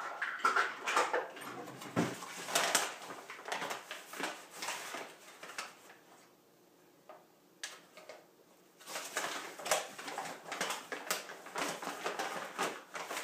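Repeated scraping and rustling of a measuring cup scooping and levelling whole wheat flour, with a quieter pause of a few seconds partway through.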